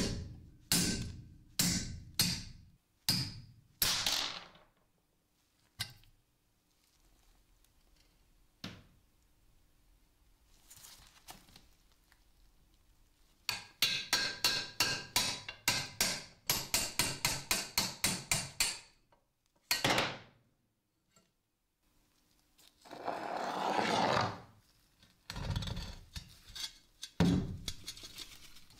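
A hammer strikes a steel punch set against the bolt in the hub of a rusty cast-iron pulley, driving the bolt out. The blows come about two a second at first, then after a lull in a quicker run of about four a second, and one more single blow follows. Near the end there is a scraping noise and some knocks as the heavy pulley shifts on the bench.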